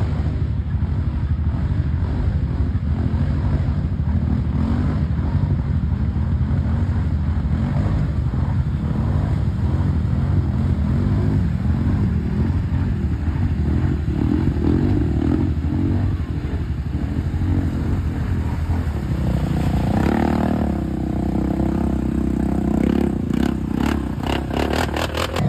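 ATV engine running under load as it churns through deep muddy water. A quick run of clicks comes near the end.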